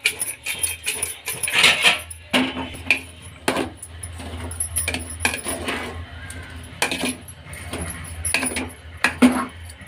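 Metal spoon scraping and clinking against an aluminium pot as diced turnip is stirred, in irregular clicks and knocks. A steady low hum runs underneath.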